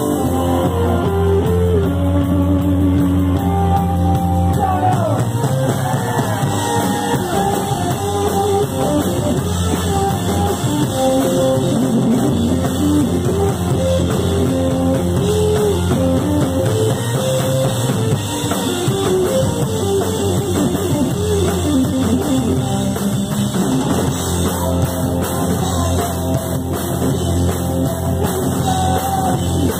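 Power pop band playing live: electric guitar, bass and drum kit, with a lead vocal that comes and goes.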